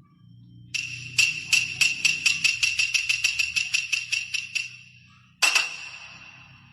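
Jingle bells shaken in a fast even rhythm, about five shakes a second for roughly four seconds. Then a single jingling strike rings out and fades.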